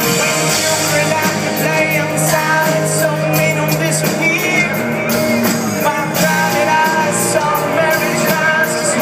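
A rock band playing live, heard from the audience: a lead vocal with held sung notes over drums, cymbals and electric guitars.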